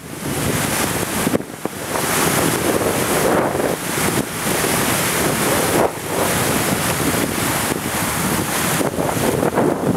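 Wind buffeting the microphone over the rushing, churning water of a departing car ferry's propeller wash around the dock pilings, with short dips where the gusts drop.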